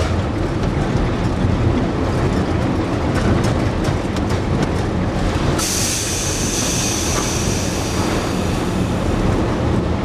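Electric mine ore train running through a rail tunnel, heard from the cab: a steady rumble with rail clicks in the first few seconds. A sharp high hiss comes in suddenly a little past halfway and fades over about three seconds.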